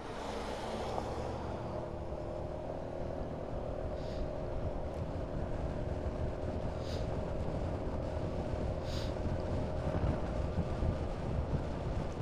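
Honda Forza 350 scooter's single-cylinder engine running at a steady cruise under a low wind rumble on the microphone. In the first second an oncoming car swishes past on the wet road.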